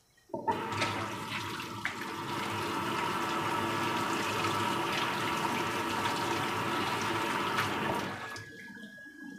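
Water rushing and splashing for about eight seconds, starting suddenly and cutting off near the end, much louder than the quiet frying oil.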